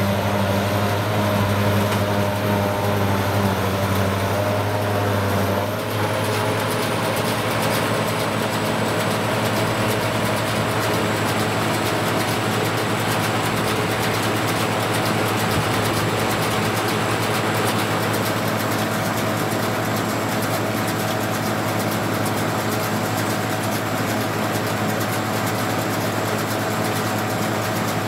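Diesel engines of County four-wheel-drive tractors and a forage harvester running steadily. The engine note changes abruptly about six seconds in and then holds an even hum.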